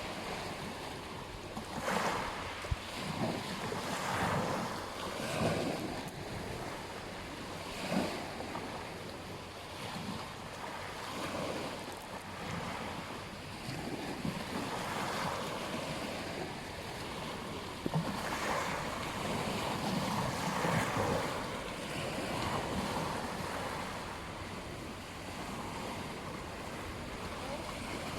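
Surf breaking on a beach, a steady rush of waves that swells and eases every few seconds. Two brief sharp clicks, one about three seconds in and one around eighteen seconds in.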